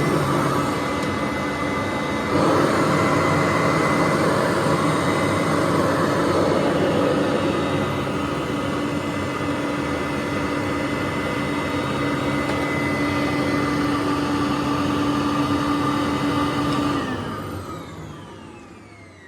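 2004 Hoover Conquest upright vacuum cleaner running steadily with a whining motor tone. It gets louder about two seconds in. Near the end it is switched off and the motor winds down with a falling whine.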